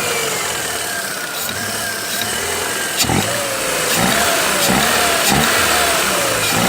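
Ford Fiesta 1.0 Zetec Rocam four-cylinder engine running with a knocking noise, its pitch wavering up and down and a little louder from about four seconds in. The mechanic likens it to a crankshaft rattle but takes it for piston-pin knock, with the oil pump worn out and giving almost no oil pressure.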